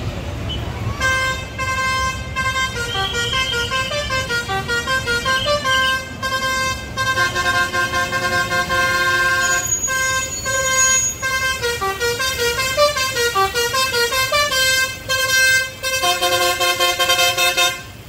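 A tour bus's basuri 'telolet' multi-tone horn playing a melody of bright tones that step up and down in pitch, with a few short breaks.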